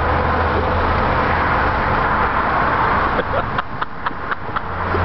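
Car engine and road noise, with a steady low hum that fades about three seconds in and returns near the end. A few sharp clicks or knocks come between about three and four and a half seconds in.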